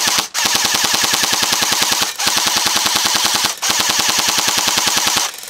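E&L AKM airsoft electric rifle firing full-auto: a rapid, even rattle of the gearbox cycling. It comes in long bursts, broken off briefly about a third of a second in, about two seconds in and about three and a half seconds in, and it stops just before the end.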